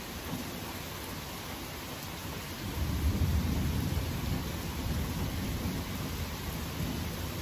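Distant thunder: a low rumble that swells about three seconds in and rolls on for several seconds over a steady hiss.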